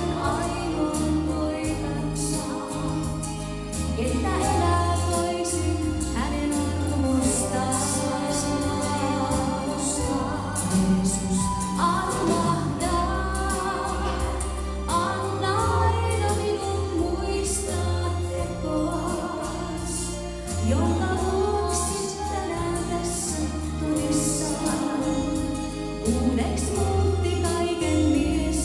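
A woman singing a slow Christian worship song into a handheld microphone, her voice rising and holding long notes over instrumental accompaniment with a bass line.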